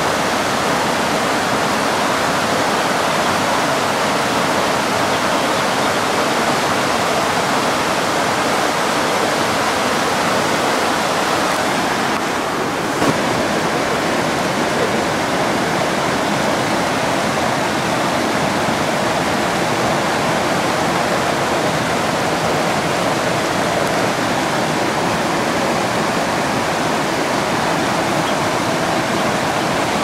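Steady, even rush of water pouring over a large waterfall, with a brief dip about twelve seconds in.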